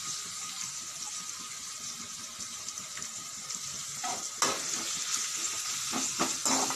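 Sliced onion, green chilli and capsicum sizzling in oil in a steel kadai. From about four seconds in, a slotted steel spatula stirs and scrapes against the pan in a run of short strokes.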